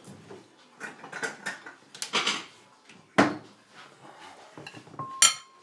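Kitchen cupboard and dishes being handled as a bowl is fetched: a series of knocks and rattles, the loudest about three seconds in. Near the end comes a sharp clatter with a brief ringing tone.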